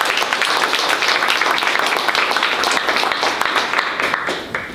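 Audience applauding, a dense run of clapping that thins out and dies away near the end.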